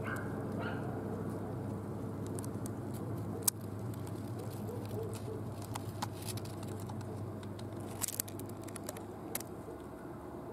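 Outdoor background: a steady low hum, a short bird call at the very start, and a few faint sharp clicks, the loudest about three and a half seconds in.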